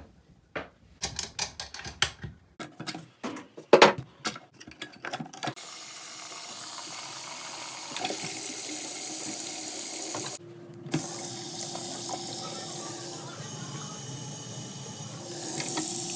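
A quick run of clicks and knocks, then water running from a faucet into a sink in a steady rush; the flow cuts off abruptly about ten seconds in and comes back half a second later, now with a faint steady whine in it.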